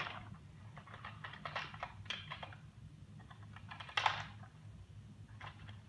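Hard plastic toy-blaster parts clicking and tapping as a small clip-on piece is fiddled with and tried against a Nerf blaster, in irregular small clicks with a sharper knock about four seconds in.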